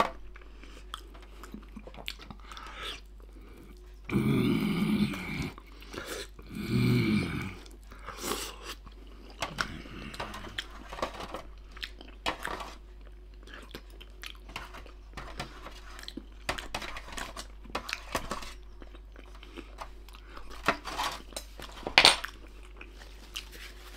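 Close-up chewing of a tough slice of grill-ready pork belly, with many wet mouth clicks and smacks. Two louder low sounds come about four and seven seconds in, and a sharp click near the end.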